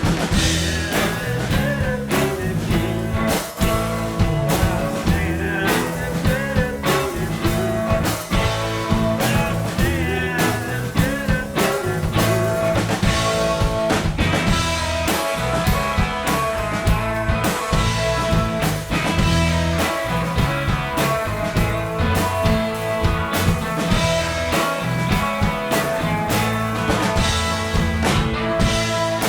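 Rock band playing an instrumental passage live: drum kit, bass and guitars.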